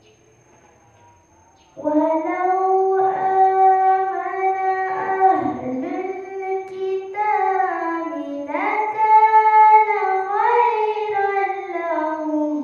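A girl's solo voice reciting the Quran in tarannum, the melodic chanting style, through a microphone. Long phrases are held on sustained notes that slide slowly up and down, starting about two seconds in after a short pause for breath.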